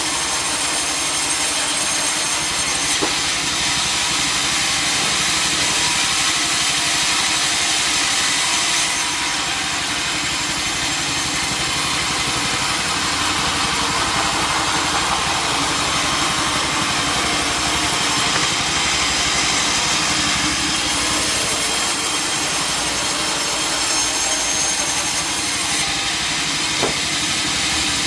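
Sawmill saw running steadily and cutting through a log, a continuous loud mechanical rasp with a couple of faint knocks about three seconds in and near the end.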